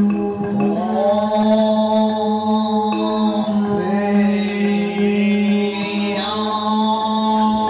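A woman's voice singing long held, chant-like notes over a steady low drone. There are three sustained notes, each sliding up into pitch, at about one second in, near the middle, and toward the end.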